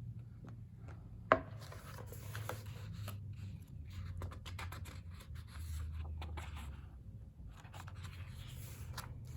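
Pages of a photobook being turned and handled: irregular paper rustling and rubbing, with one sharp click a little over a second in.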